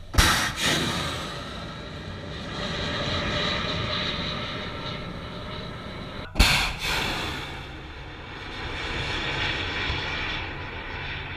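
Tamir interceptor missiles launching from a ship-mounted box launcher. A sharp launch blast comes right at the start, followed by the rocket motor's rushing noise as it fades away. A second sharp launch blast comes about six seconds in, followed by another long rushing noise that swells and fades.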